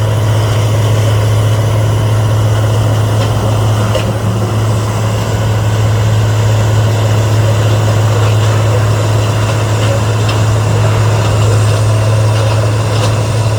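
Heavy diesel engine of a wood hog, an industrial wood shredder, running steadily with a loud, even low hum.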